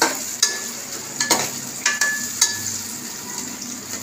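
Sliced onions sizzling in hot oil in a large metal pot while a metal spoon stirs them, clinking and scraping against the pot about five times.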